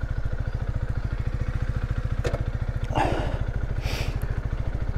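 Honda CB125R's 125 cc single-cylinder four-stroke engine running steadily at low revs as the motorcycle moves off slowly, with a couple of light knocks partway through.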